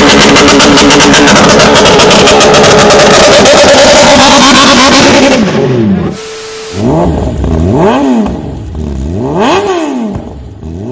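Kawasaki ZX25R's 250 cc four-cylinder engine revved hard and held high for about five seconds, very loud. After a short break come four quick throttle blips, each note climbing and dropping back, about one and a half seconds apart.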